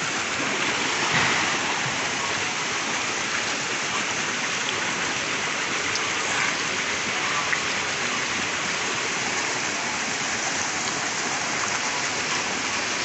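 Water pouring from a fountain spout into a swimming pool, a steady, even splashing rush.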